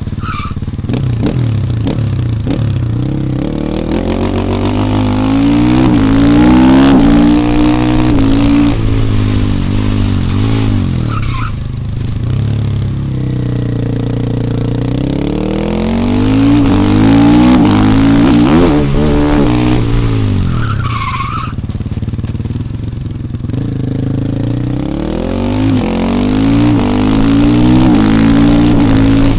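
KTM 450 EXC supermoto's single-cylinder four-stroke engine accelerating hard through the gears, pitch climbing and dropping with each upshift. It eases off twice between three surges of acceleration.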